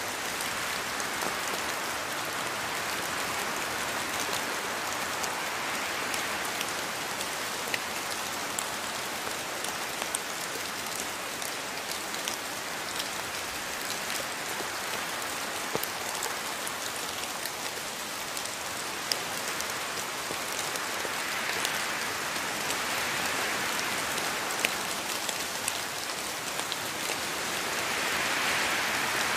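Steady rain in a rainforest: an even hiss of falling rain with scattered individual drops ticking through it, growing a little louder near the end.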